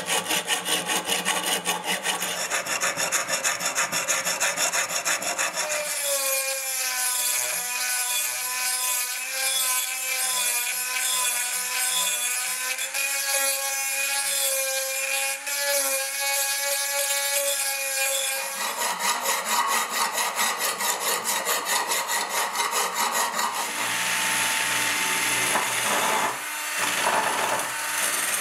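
A hand file scraping across the rusty steel of a bayonet in quick repeated strokes. About six seconds in it gives way to the steady whine of a rotary tool grinding rust off with a sanding drum. Near the end a drill spins a wire brush wheel against the metal.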